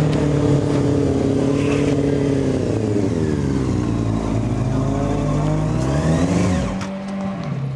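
Sport motorcycle engine running close by as the bike rides up and slows: its pitch falls, then rises again in a rev about six seconds in, and the sound drops away near the end.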